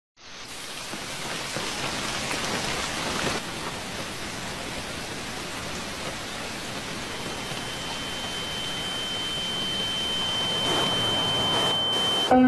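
Steady rushing hiss that fades in at the start and slowly grows louder, with a single high steady tone that comes in about seven seconds in and cuts off just before the end.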